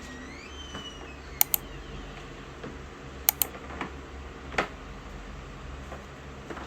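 Sharp double clicks, each pair a split second apart, twice about two seconds apart, then a single duller knock about four and a half seconds in, over a steady low hum.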